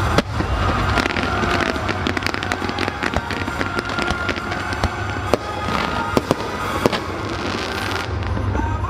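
Fireworks going off: a rapid string of sharp bangs and crackles, with a loud bang just after the start and several more between about five and seven seconds in, over music with a steady low bass.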